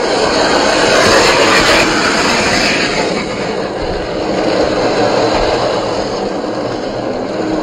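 1/10-scale RC rock crawler on an Axial SCX10 III chassis with a 540-size brushed motor, driving slowly over rock and loose gravel: motor and gears running under load with tyres grinding and crunching on the stones, loudest a second or two in.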